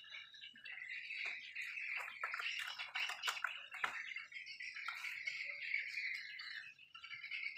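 Plastic clicks and knocks from an inkjet printer mechanism being handled and set down on a tile floor, bunched about two to four seconds in. Steady high-pitched chirping runs underneath.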